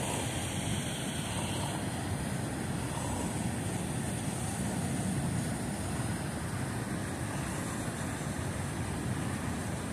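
Steady rushing noise of the fast-flowing river below the dam, an even roar with no breaks.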